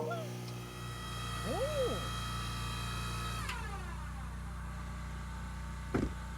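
Gas-powered wood splitter engine running steadily, with a high whine that glides down and stops about three and a half seconds in. A short knock near the end.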